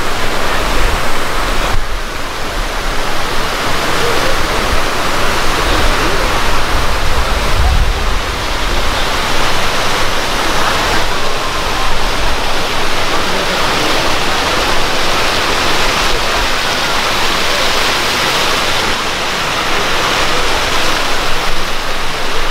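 Water jets and cascades of a large memorial fountain splashing into its pool, a steady, loud rush of falling water.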